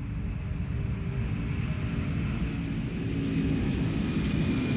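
Boeing 747SP's four jet engines at takeoff thrust as the jet leaves the runway. A steady low rumble with a faint high whine above it grows slowly louder.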